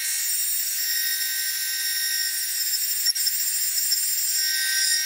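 Vertical milling machine's end mill cutting an aluminum mount, a steady high-pitched whine with one faint click about three seconds in.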